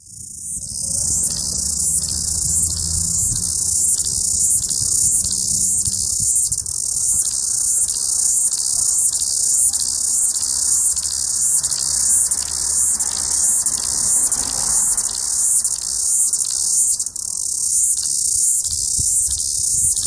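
Cicada singing: a loud, shrill, high-pitched buzz with a steady rhythmic pulse. A faint low rumble lies under it in the first half.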